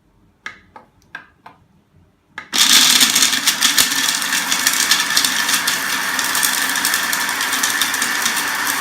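Small electric nut and coffee grinder chopping hard almonds: a few light clicks, then about two and a half seconds in the motor starts and runs steadily at full speed, the blade rattling through the nuts.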